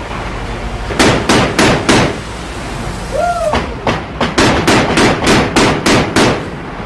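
Mark 38 25 mm chain gun firing single shots in a steady, slow string, about three a second. There are four shots about a second in, then after a pause a longer string of about nine. A steady low rumble runs underneath, and a short pitched tone rises and falls about three seconds in.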